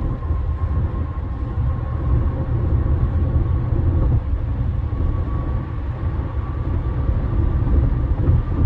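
Road and tyre noise inside the cabin of a Honda CR-V cruising at highway speed: a steady low rumble, with a faint steady whine above it.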